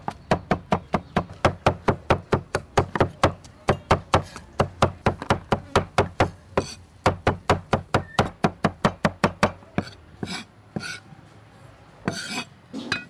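Kitchen knife chopping on a wooden chopping board, slicing mushrooms in quick, even strokes of about four a second. The strokes pause briefly near the middle and thin out to a few scattered knocks near the end.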